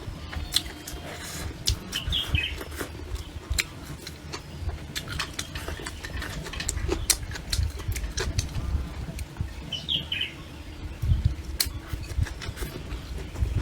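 Birds chirping outdoors in short calls, about two seconds in and again about ten seconds in, over frequent sharp clicks and knocks and a few low thumps.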